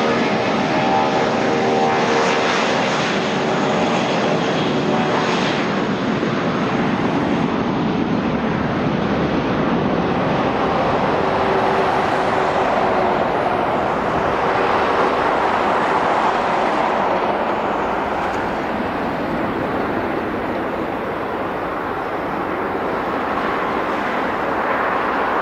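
Jet airliner engines, loud and steady throughout. A whine of several tones sits over the rushing noise for the first few seconds, then fades away.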